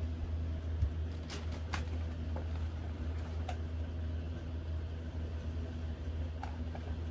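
A steady low hum with a few faint, short clicks.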